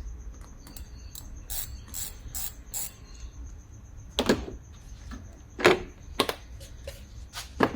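Hand tools and car parts clicking and knocking as parts are taken off a car's engine bay. Irregular light clicks come about three a second for the first few seconds. Two louder knocks follow around four and five and a half seconds in, then a few lighter clicks.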